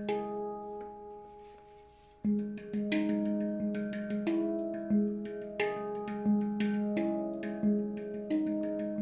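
Steel handpan played with the fingertips: struck tuned notes that ring on and overlap. The notes die away for about two seconds near the start, then a steady pattern of strikes resumes, with a low note returning regularly and higher notes between.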